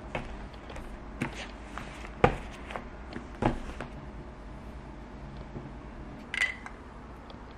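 A handful of soft knocks and taps as a hardcover book and a folded newspaper are set down and settled on a leather desk mat, the loudest about two seconds in. A short, higher-pitched tap comes near the end.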